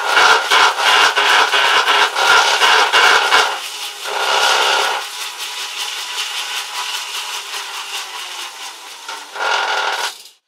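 Tacx T1100 Galaxia bike rollers spinning with a loud grinding, rubbing noise and fast regular knocking. The sound eases off about halfway through, comes back loud briefly near the end, then stops suddenly. It is the abnormal noise the rollers developed after about 160 miles of use.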